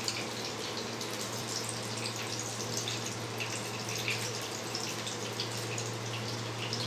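Hot oil sizzling, with irregular small crackles over a steady hiss and a constant low hum underneath.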